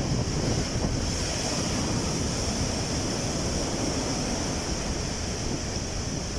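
Sea surf washing in under strong wind, with the wind buffeting the microphone in a steady rumble.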